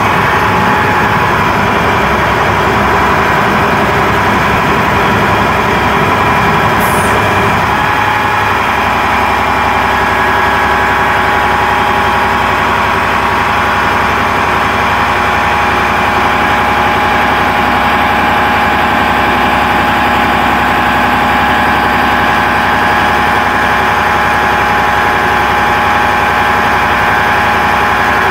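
Crane truck's diesel engine running steadily, with a low rumble that drops away about eight seconds in.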